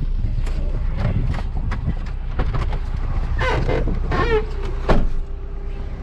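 Maruti Suzuki Swift Dzire's diesel engine running, a steady low rumble heard inside the cabin with scattered small clicks and squeaks. Near the end comes a loud click as the car door is opened, after which the rumble drops and a steady tone remains.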